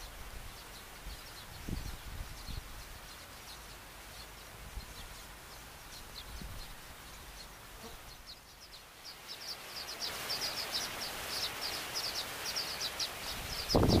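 Baya weavers chirping: many short high notes that come thicker and louder in the second half, over a steady hiss. A few low thumps fall on the microphone, the loudest near the end.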